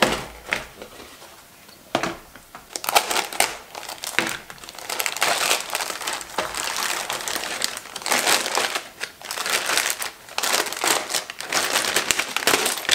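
Clear plastic bag crinkling as plastic model-kit sprues are handled and lifted out of it, after a couple of sharp knocks in the first two seconds.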